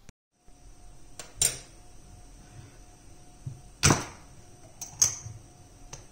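A few sharp knocks, the loudest about four seconds in, over a faint steady high-pitched whine.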